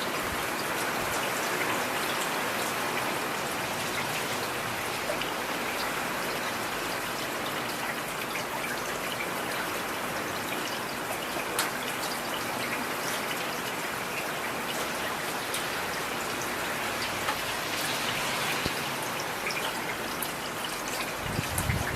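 Heavy rain falling steadily, a dense even hiss with scattered sharper drops striking close by.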